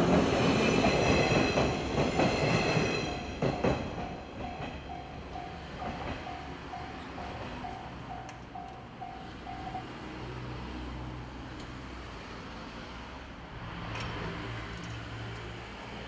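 A 113-series electric train rattling over the rails through a level crossing, loud at first and fading away within about four seconds. The crossing's warning bell goes on ringing in an even beat of about two strokes a second, then stops about ten seconds in.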